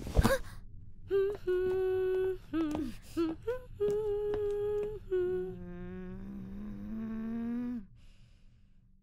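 A short thump, then a voice humming a wordless tune of held notes that step up and down. It ends in two long notes, one sliding slowly up and the other down, which stop about a second before the end.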